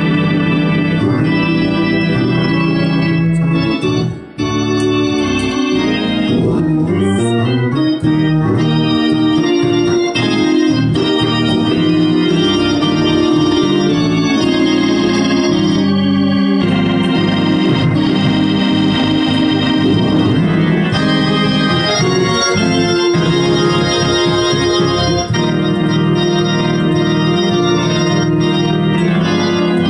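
Two-manual console organ played with both hands: sustained chords under a moving line of notes, with a short break about four seconds in.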